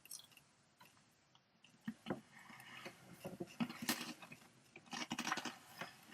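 Faint crunching of a honey Dijon mustard pretzel being chewed, in scattered bursts of small crackling crunches.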